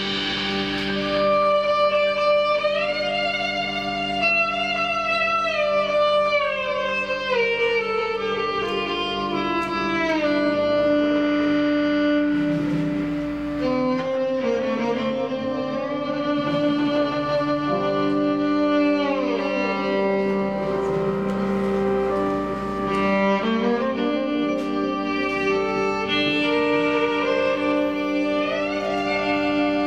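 Live experimental ensemble music: bowed strings hold long, layered notes over sustained low tones, sliding slowly down in pitch several times and rising again near the end.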